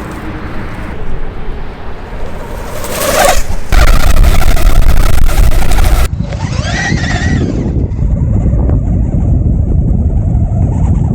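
Electric skateboard being ridden: a steady rumble of the wheels on the road and wind on the microphone. The rumble is loudest for a couple of seconds and cuts off suddenly. A little past halfway a brief whine rises and falls.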